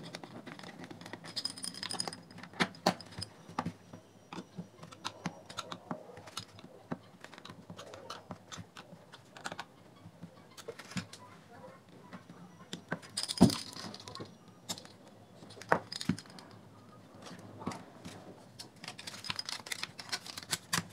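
Irregular clicks, taps and small rattles of a JBL Flip speaker's plastic frame, grille cover and housing being handled and pressed together during reassembly. The loudest is one sharp knock about thirteen seconds in.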